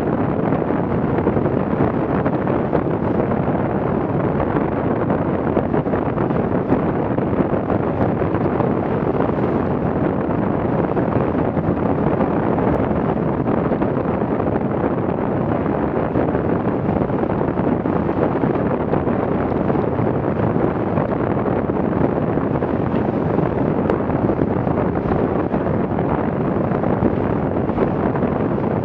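Steady wind buffeting the microphone over the rush of water and spray along the hulls of a Farrier F-82R trimaran sailing at about 12 knots through high waves.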